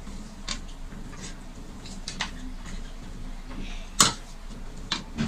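Eating sounds at the table: scattered sharp clicks of chewing and of fingers mixing rice on plastic plates, with one louder clack about four seconds in as a serving spoon knocks against a bowl.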